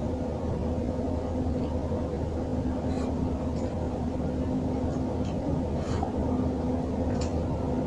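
Pancit canton noodles being eaten with a fork: a handful of faint clicks and slurps, about half a dozen, over a steady low hum with a faint steady tone.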